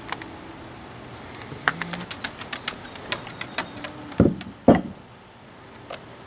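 Siberian husky at a raw cow marrow bone on a wooden deck: a quick run of sharp clicks and taps for about two seconds, then two heavier knocks half a second apart, the loudest sounds, as the bone is worked against the boards.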